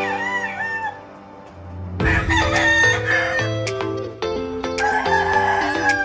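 Gamefowl rooster crowing over background music: short wavering calls in the first second, then one long crow about five seconds in that falls slightly at its end.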